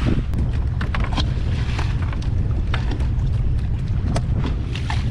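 Wind buffeting the microphone on a small open fishing boat at sea: a steady heavy low rumble, with many short knocks and slaps scattered through it.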